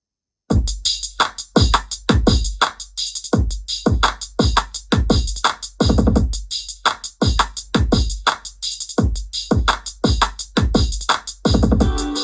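Electronic track with a punchy drum-machine beat and deep bass played loud through a portable Bluetooth speaker, cutting in abruptly about half a second in; held synth chords come in near the end.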